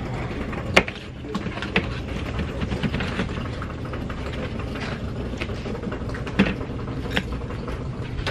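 Stacked plastic storage totes and lids knocking and scraping as they are pulled off a shelf and handled, with a few sharp knocks over a steady low background hum.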